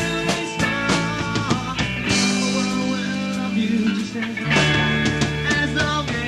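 Rock music from a band recording: electric guitar over held bass notes and drums.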